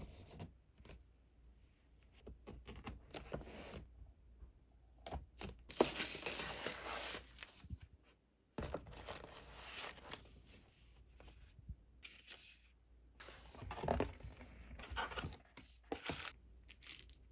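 Plastic packaging crinkling and tearing in two longer bursts, about six seconds in and again near the end, with scattered small clicks between, as the keyboard switches are unpacked and handled.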